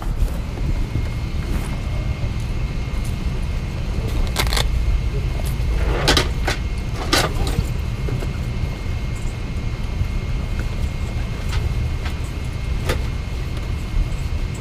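Steady low rumble inside a parked Boeing 777-200's cabin, with a faint steady high whine and a few clicks and knocks between about four and seven seconds in.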